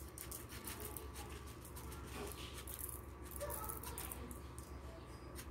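Tiny sequins pouring from a small plastic bag onto a glue-coated ribbon bow: a faint, continuous patter of fine ticks as they scatter over the bow and the table.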